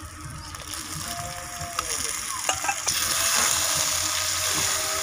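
Marinated chicken pieces sizzling as they go into hot oil and fried onions in a clay pot and are stirred with a steel spoon. A few clicks of the spoon against the pot come first, then the sizzle grows much louder about three seconds in.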